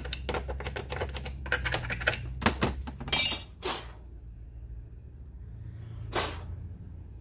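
A hand tool scraping rapidly inside a cracked aluminum chainsaw side cover, cleaning out the cracks before they are filled with JB Weld: a quick run of small clicking scratches for the first few seconds. Then the cover is picked up and handled with a few rustling scrapes, and there is one brief swish near the end.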